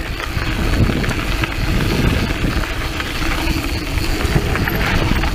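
Steady wind rumble on the microphone of a mountain bike being ridden, with the tyres rolling over a dirt trail and a few small rattles.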